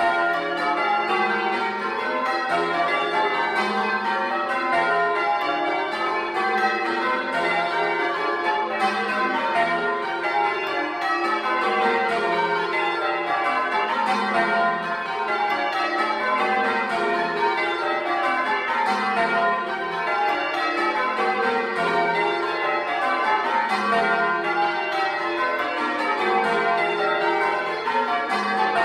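Ten church bells change ringing Grandsire Caters, heard at close range in the belfry. The strokes follow one another in an even, unbroken rhythm, the tenor tuned to F.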